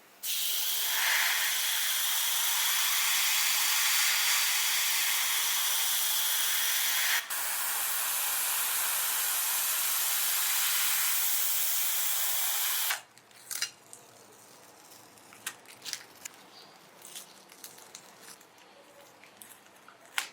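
Paint being sprayed onto a scale model car body: a long, steady hiss with a brief break about seven seconds in, stopping about thirteen seconds in. Then faint, scattered light clicks and taps.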